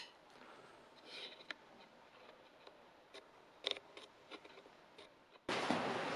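Faint light clicks and knocks as a wooden-handled knife is handled and set on an anvil. Near the end a much louder scratchy rubbing noise starts suddenly.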